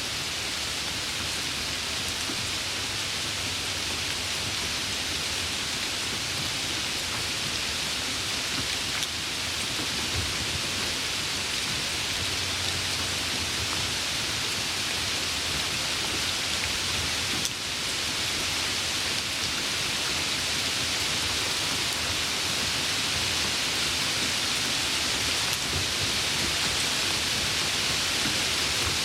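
Steady rain falling, a dense even hiss that grows slightly louder toward the end.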